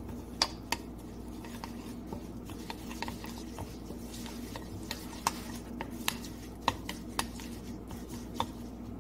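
Metal spoon stirring za'atar and olive oil in a ceramic bowl, with irregular light clinks of the spoon against the bowl. A steady low hum runs underneath.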